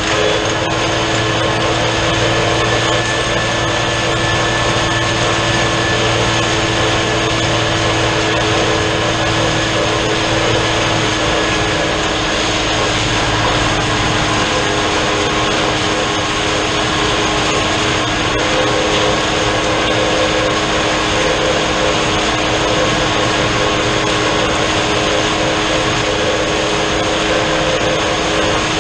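New Holland TN70 tractor's diesel engine running steadily under load while its drum mower spins, cutting hay: a loud, even drone with several held tones. Its tone shifts a little about halfway through.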